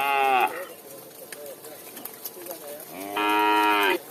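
Cattle mooing: a short moo right at the start and a longer, louder one about three seconds in, with fainter lowing from other cows in the herd between them.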